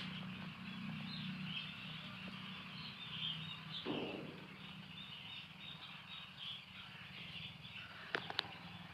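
A poultry flock chirping continuously in a chorus, over a steady low hum. There is a short louder sound about four seconds in and a few sharp clicks near the end.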